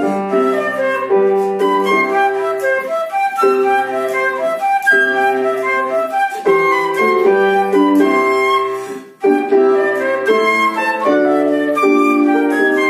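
Flute-type woodwind playing a fast classical melody of short, moving notes, with lower accompanying notes underneath. The music breaks off briefly about nine seconds in, then carries on.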